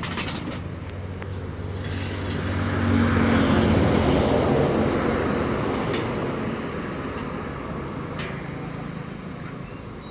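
A motor vehicle passing, its engine and road noise swelling over a few seconds and then slowly fading.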